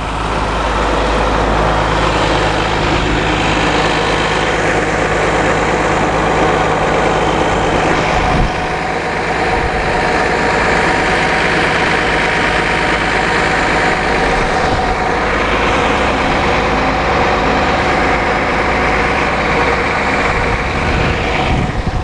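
Cummins ISC 8.3-litre inline-six turbo diesel idling steadily and loudly, heard up close at the open engine compartment.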